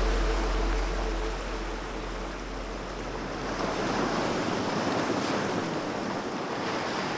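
Ocean surf washing onto a beach, the wash easing a little about two seconds in and building again. A deep low rumble fades out about four seconds in.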